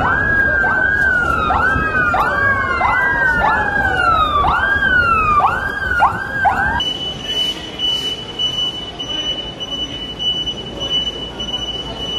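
Police car sirens wailing, one rising in quick repeated sweeps about every half second while another glides down across it. About seven seconds in the wailing stops and a steady high siren tone carries on.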